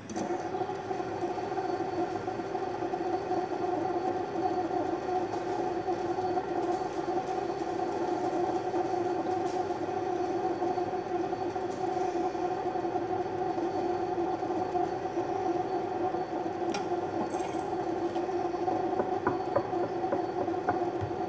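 Fidget spinners spinning, their bearings giving off a steady, even whirring hum that starts abruptly and holds at one pitch.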